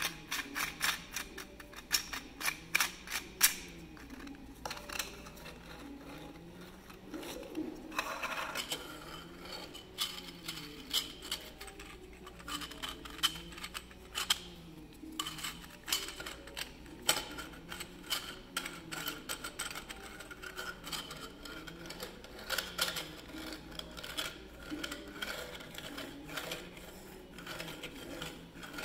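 3D-printed PLA spherical roller bearing being turned by hand and rolled on a desktop: the plastic rollers click and rattle against the races, with light scraping, in quick irregular runs.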